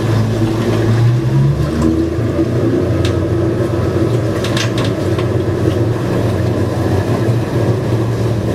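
Boat engine running with a steady hum, its low note shifting briefly about a second and a half in.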